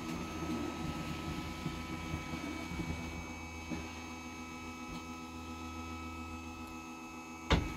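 RV bedroom slide-out's electric drive motor running, a steady hum with a constant whine as the slide room is powered outward. It ends with a knock near the end as the motor stops.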